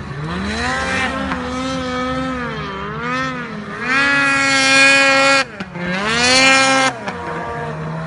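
Snowmobile engine revving, its pitch rising and falling with the throttle. It is loudest from about four seconds in, cuts off sharply just after five seconds, surges again, then drops back near the end.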